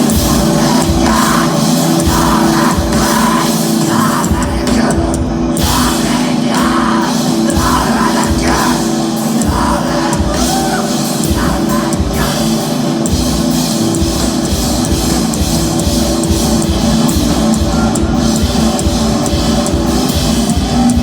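A live rock band playing a loud, heavy song on guitar and drums.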